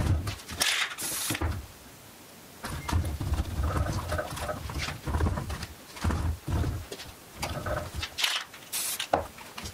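Paint-loaded sponges dabbed against an AR-15 rifle and the cardboard under it: irregular soft taps and scuffs. There are brief sharper scrapes about a second in and near the end.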